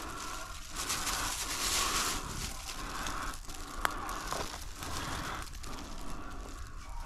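Dry leaves and brush crunching and rustling underfoot as someone walks through the woods, with a sharp snap about four seconds in.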